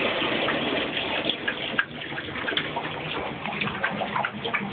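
Bathtub tap running into the tub while a young pit bull drinks from the stream, with irregular splashes and laps mixed into the steady rush of water.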